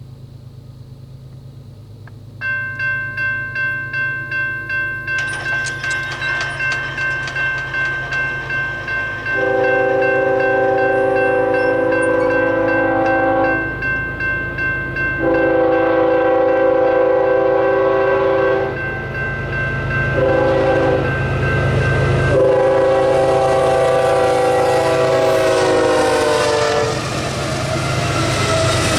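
A grade-crossing bell starts ringing about two strikes a second a couple of seconds in. Then Union Pacific 8174's Nathan K5HL five-chime horn blows the crossing signal, long, long, short, long, the last blast dropping in pitch as the lead GE ES44AC passes, over the low rumble of the diesel locomotives. Near the end the rushing roll of the train's cars takes over.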